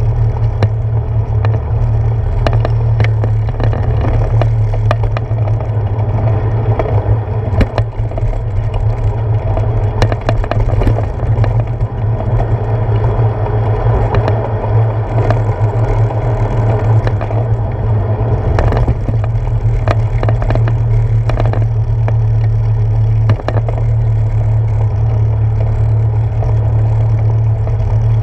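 Bicycle riding noise picked up by a handlebar-mounted GoPro Hero 4: a steady low rumble of wind and vibration, with frequent clicks and rattles as the tyres roll over wooden boardwalk planks and a paved path.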